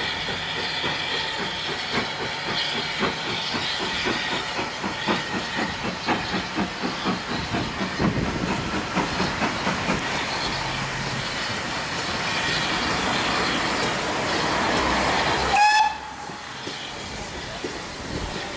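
GWR Modified Hall 4-6-0 steam locomotive No. 6990 working a passenger train past, with rhythmic exhaust beats and wheels clattering over the rail joints, the noise building as it nears. Near the end there is a sudden loud moment with a brief high note, and the sound is quieter after it.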